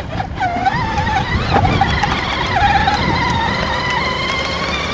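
Power Wheels Yamaha Raptor ride-on quad's electric drive screaming as it drives: a high, wavering whine with overtones, over the low rumble of its wheels rolling from grass onto concrete.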